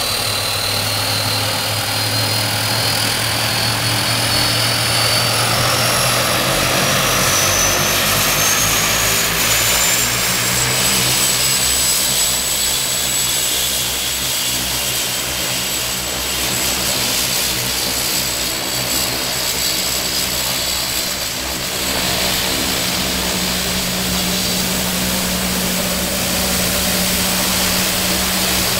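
Grumman-Schweizer Super B Ag-Cat's Garrett turboprop engine running on the ground, its propeller turning. A high whine climbs in pitch over the first ten seconds or so as the engine spools up, then holds steady over a continuous engine and propeller drone.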